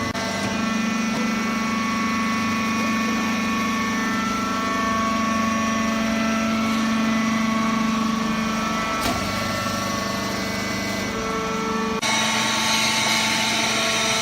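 Hydraulic wood-shaving baling machine running: a steady motor and pump hum with held tones, changing abruptly twice, about nine and twelve seconds in.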